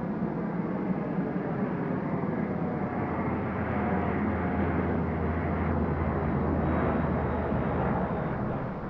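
Turboprop engines and propellers of two large radio-controlled Embraer EMB 312 Tucano model aircraft flying past in close formation, the pitch falling at first as they go by.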